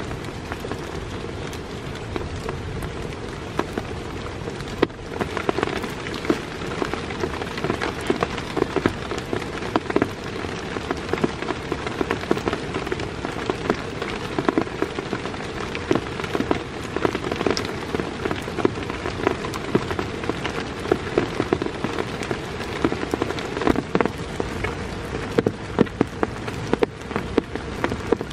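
Heavy rain falling steadily, with many sharp drop hits close by standing out above the hiss of the downpour; the hits become denser a few seconds in.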